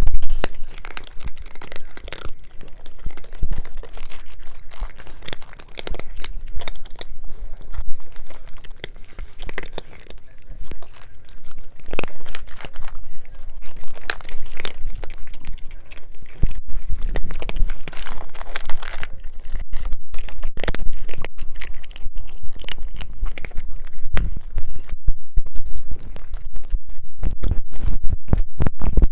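Cats eating, chewing their food with a dense, irregular run of crunchy clicks.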